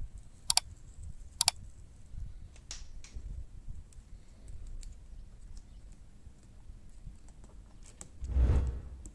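Scattered small clicks and crackles of a vinyl decal sheet and its clear transfer film being handled and positioned by fingers. Two sharp clicks about a second apart come in the first two seconds, and a louder rustle comes about eight seconds in.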